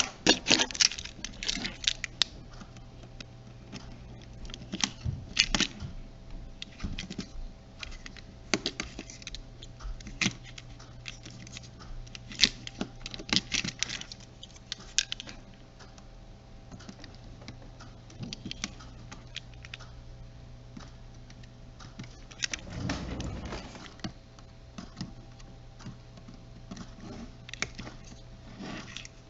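Scattered small clicks and ticks of a precision screwdriver and fingers working on a camcorder's plastic body as its tiny screws are taken out, with a brief rubbing noise about three-quarters of the way through. A faint steady hum runs underneath.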